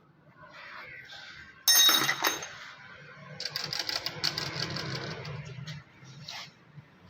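Metal tools and small diesel-pump parts being handled: a loud metallic clank that rings on briefly about two seconds in, then a couple of seconds of metal pieces rattling and clinking against each other, over a steady low hum.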